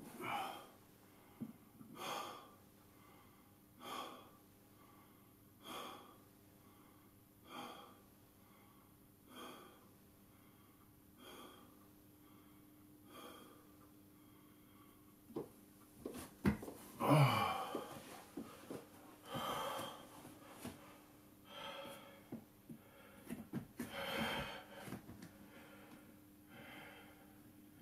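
A man breathing hard while exercising: short, forceful breaths, about one every two seconds. About two-thirds through comes a louder breath with some voice in it, like a grunt.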